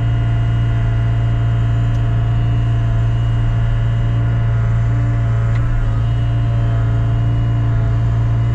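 Large diesel engine running at a steady idle, an even low drone with no change in engine speed.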